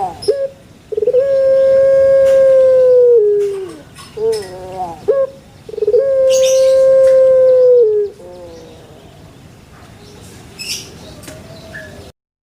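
An animal gives two long, steady, howl-like calls of about two seconds each that drop in pitch at the end, with shorter wavering calls between them. The sound cuts off abruptly near the end.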